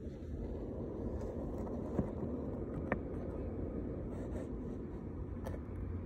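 Steady low outdoor background rumble, with two short clicks about two and three seconds in.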